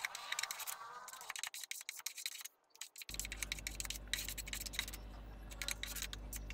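Scratchy rubbing and clicking of a hand-held pad wiping a liquid finish over a plywood tabletop. The sound drops almost to nothing for a moment, and from about three seconds in a steady low hum runs under the scratching.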